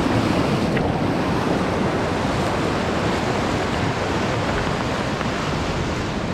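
Steady rush of a mountain stream's water running over rocks close by.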